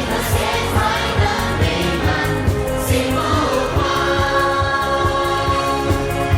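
Song with singing over a steady beat, the music for a group exercise routine.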